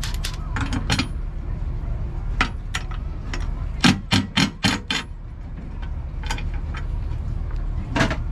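Hand tools clicking and knocking on metal as a part is bolted down, with a quick run of about six sharp knocks midway and a single one near the end, over a steady low rumble.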